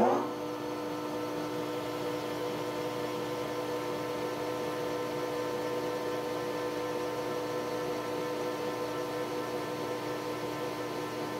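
Metal lathe running with its chuck spinning: a steady hum with a few held tones that settles just after the start from a louder moment.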